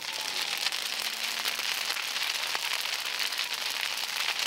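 A large fire burning and crackling: a dense run of small pops and snaps over a steady hiss.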